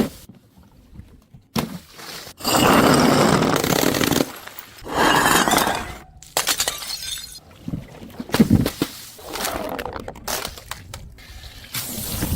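Glass being smashed: a long shattering crash about two seconds in and a second one about five seconds in, followed by a run of sharper cracks and clinking shards.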